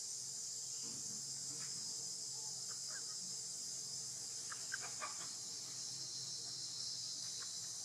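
Steady high-pitched drone of an insect chorus, with a few faint short chirps about three and five seconds in.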